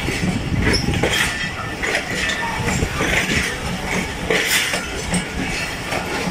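Passenger train running: a steady low rumble with irregular rattles and clinks.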